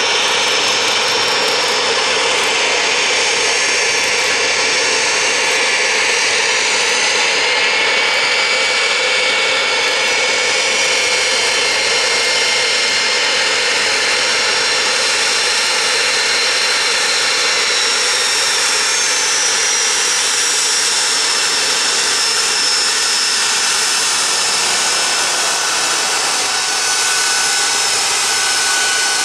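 Gulfstream II's two Rolls-Royce Spey turbofan engines running at taxi power: a loud, steady jet roar and whine, with several high tones drifting slowly in pitch.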